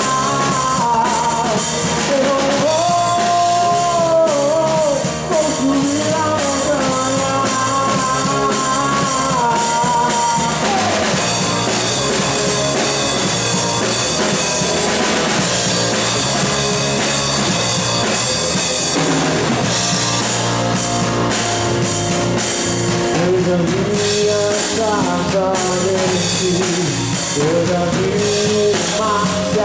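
Live band rehearsal of a gospel worship song: a man singing into a microphone over a drum kit and electric bass, playing along with a backing sample. The voice drops out for an instrumental stretch in the middle, with cymbals and drums carrying on, then the singing comes back near the end.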